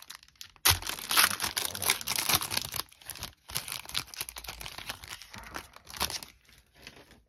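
Foil trading-card pack wrapper being torn open and crinkled in the hands: a sharp rip under a second in, then several seconds of dense crackling foil that thins out near the end.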